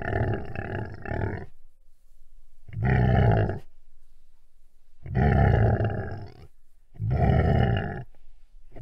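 A large wild animal calling repeatedly: a series of loud, deep calls, each about a second long, with pauses of about a second between them.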